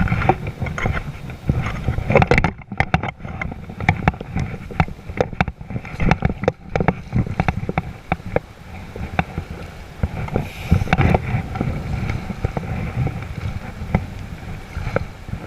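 Wind buffeting the microphone outdoors: an uneven low rumble with gusts and crackles, rising and falling.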